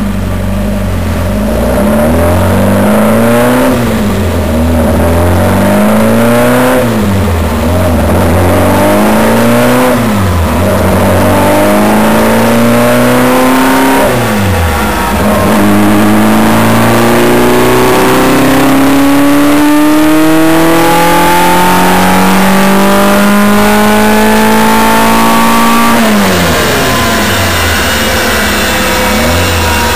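DOHC Renault Gordini four-cylinder racing engine being revved on a power dyno: four quick blips of the throttle that rise and fall back, then one long steady pull climbing up through the revs for about ten seconds before the throttle is shut and it drops back.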